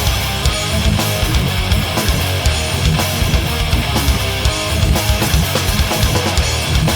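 Rock band recording playing: electric guitars strummed over a drum kit keeping a steady beat.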